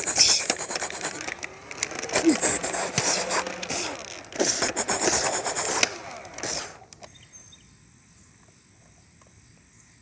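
Toy Nerf blasters in play: a rapid clatter of clicks with a few short falling tones, stopping about seven seconds in, after which it goes quiet.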